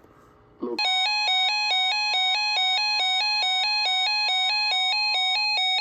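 Electronic broadcast alert tone starting just under a second in: a buzzy, rapidly alternating multi-pitch beeping pattern repeating steadily. It signals that a severe thunderstorm warning is about to be read.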